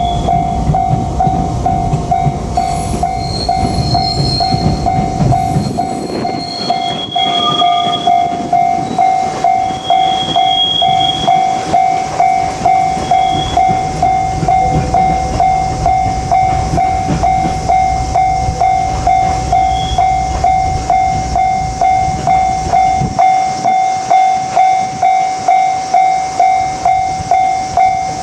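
Japanese level-crossing alarm bell ringing steadily, about one and a half strikes a second, as a freight train hauled by a JR Freight EF81 electric locomotive rumbles over the rails.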